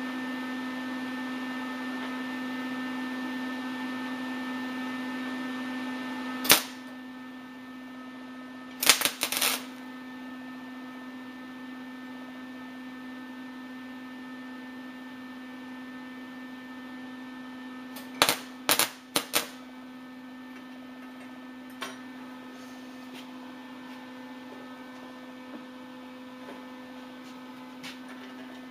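Lincoln 180 MIG welder running flux-core wire, striking short crackling arcs on steel rod in three brief goes: a single crack about six seconds in, a quick cluster around nine seconds, and another cluster around eighteen to nineteen seconds. These are three attempts to get the branch weld to hold. A steady electrical hum from the welder sounds beneath, dropping in level with the first arc.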